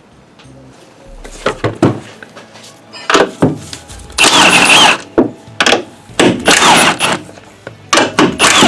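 Cordless impact wrench spinning off the strut's upper mount nuts in several short bursts with a motor whine, the longest in the middle and another near the end, with knocks between them.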